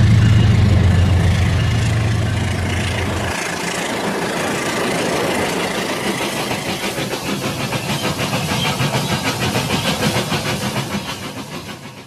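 Toy trains running on plastic toy track. A low steady engine-like hum stops about three seconds in, and a rhythmic clatter follows that builds and then fades away near the end.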